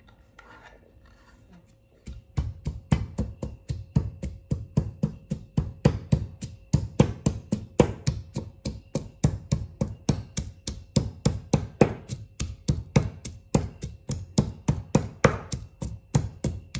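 Knife chopping rapidly on a cutting board, mincing onion and garlic by hand. The even thuds come about four a second and start about two seconds in.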